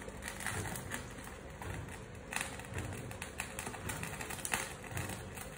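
A pan of chicken and tomato soup boiling hard on a gas hob: irregular ticking and popping of bubbles over a low steady rush.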